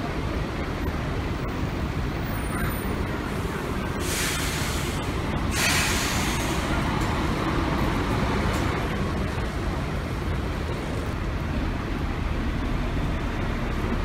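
Bus engines running as buses move through a station bus terminal, with two loud hisses of compressed air from a bus's air brakes, about four and six seconds in.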